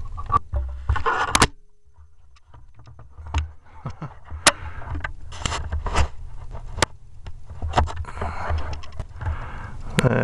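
Handling noise from the air rifle and its scope-mounted camera being moved and brought onto the target: scattered sharp clicks and knocks with scraping, over a low rumble.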